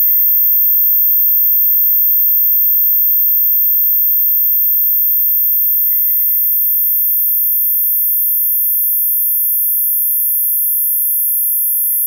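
Experimental electronic sound-art piece of several steady, very high-pitched sine-like tones over a fainter steady middle tone; another high tone joins about three seconds in.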